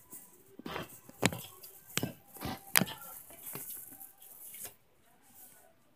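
Handling noise from a phone camera moved about against a shopping cart: a string of sharp knocks and clatters, roughly six of them, that stops near the end.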